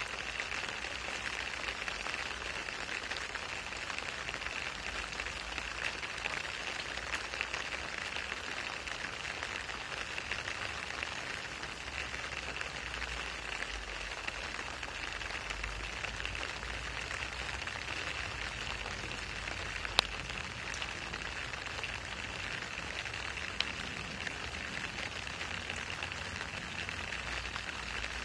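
Steady rain falling on wet asphalt and shallow puddles: an even, dense hiss of drops with no let-up. Two sharp ticks stand out, the first about twenty seconds in and a fainter one a few seconds later.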